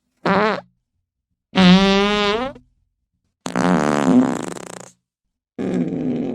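Fart sound effects played one after another with short silent gaps: a brief one, then two longer buzzing ones, the second of which rises in pitch at its end, and a fourth, rougher one starting near the end.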